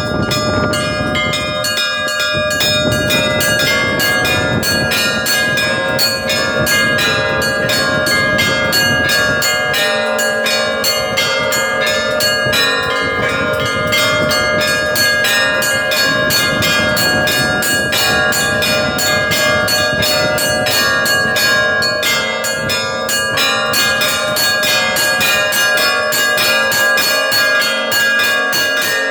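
Russian Orthodox church bells being rung in a continuous peal. Small bells clash in quick strokes over the held tones of larger bells, with a deep low bell sounding in the first part.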